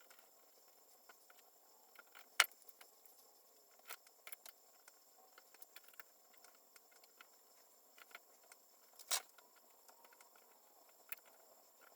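Scattered light clicks and taps from handling tools and wiring on a workbench. The sharpest click comes about two and a half seconds in, and another about nine seconds in.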